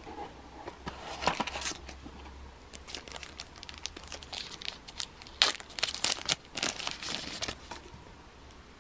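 Thin plastic packaging crinkling in irregular bursts as it is pulled open by hand to unwrap a phone battery, loudest about five and a half seconds in.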